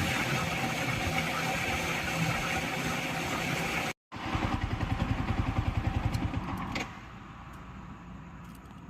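A motor engine running. About four seconds in, the sound cuts out for a moment. It comes back with a strong, even pulsing beat of several pulses a second, then drops to a lower level near the end.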